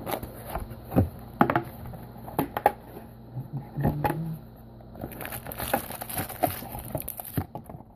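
Irregular clicks, taps and light rustling as a cardboard trading-card box, just cut open, is handled and its foil-wrapped card packs are taken out.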